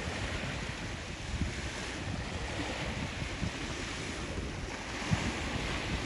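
Small waves washing onto a sandy beach, with wind buffeting the microphone in uneven low gusts.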